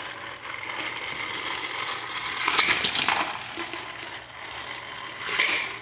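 Small die-cast toy cars clattering on a plastic loop track: a steady mechanical rattle that swells about two and a half seconds in and again near the end.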